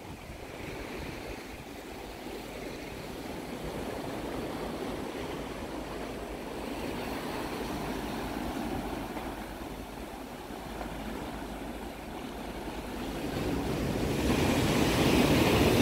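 Sea waves breaking and washing up a sandy beach, swelling and easing, loudest near the end.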